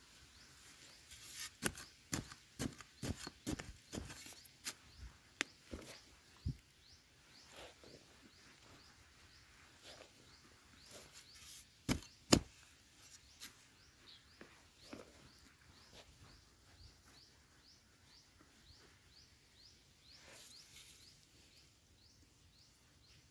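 Flat metal digging blade chopping into dry, sandy soil, a run of strikes about two a second at first, then scattered strikes with the two loudest about halfway through.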